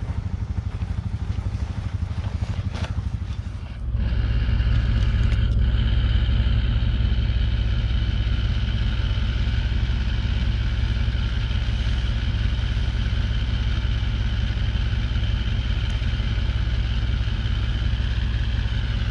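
Land Rover Discovery engine running. About four seconds in it becomes suddenly closer and louder and settles into a steady idle with a high whine over it. A few sharp clicks come in the opening seconds.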